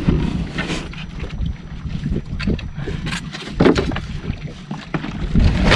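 Wind buffeting the microphone aboard a small fishing boat, a rough low rumble, with irregular knocks from gear being handled in the boat.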